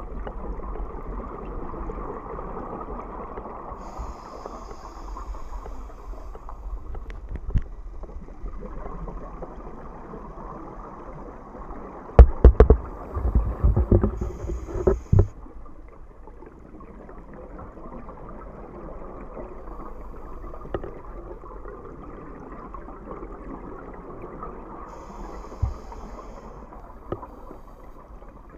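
Scuba regulator breathing heard underwater through a camera housing: a steady muffled rush, a short high hiss of inhaled breath three times, and a loud low burble of exhaled bubbles about twelve seconds in, lasting about three seconds.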